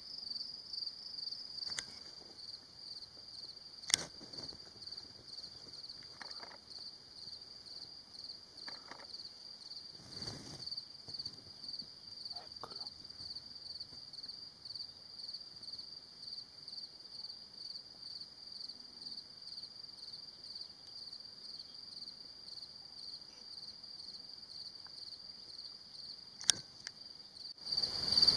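Continuous high-pitched chirring of crickets in a mountain meadow, pulsing rapidly and evenly, growing louder just before the end. Two sharp clicks cut through it, about four seconds in and near the end.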